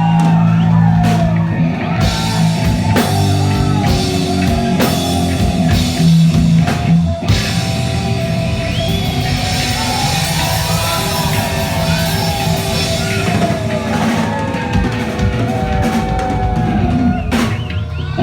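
Live punk rock band playing loud, with drum kit hits and electric guitar over a steady low bass line.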